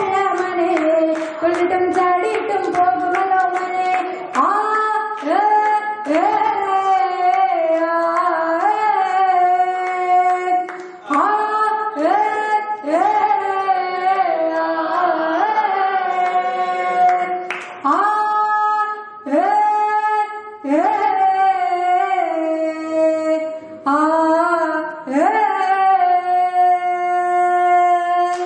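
A woman singing a Malayalam folk song (nadan pattu) solo into a handheld microphone, in phrases that bend in pitch and end on long held notes.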